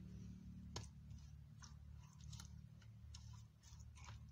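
Faint wet squishing and scattered light clicks of hands rubbing masala paste into whole fish in a steel bowl, over a steady low hum.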